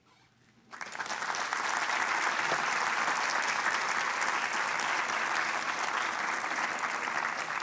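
Audience applauding in a lecture hall: steady clapping from a sizeable crowd that starts suddenly almost a second in and keeps up, signalling the end of a talk.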